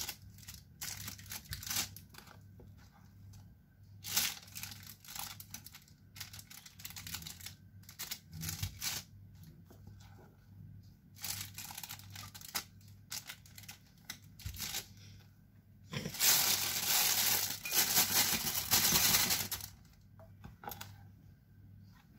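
Scattered scrapes and clicks of a utensil working a bowl of cream mixture by hand, with a denser stretch of about three seconds of scraping and rustling near the end, over a faint steady hum.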